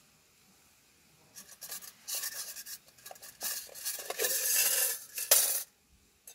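Handling noises: irregular scraping and rustling with small clicks for about four seconds, then a sharp click near the end.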